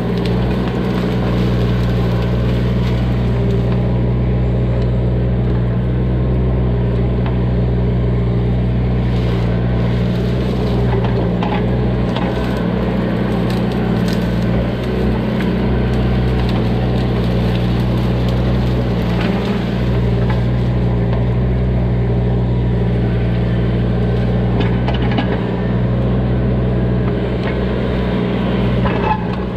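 Bobcat E20 mini excavator's diesel engine running steadily as the bucket works through brush, with scattered cracking and snapping of branches.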